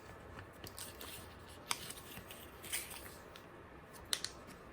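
Faint handling noise: a few light clicks and rustles of small items being moved about by hand, with single ticks about two seconds in and a pair of ticks near the end.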